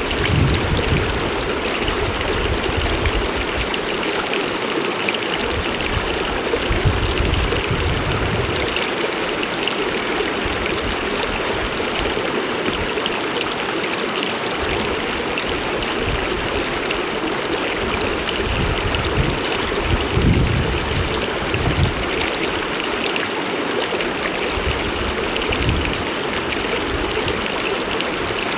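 Shallow stream rushing over stones right at the microphone, a steady close hiss, with a few irregular low bumps. Some seconds in, a hiker wades through the water past the microphone.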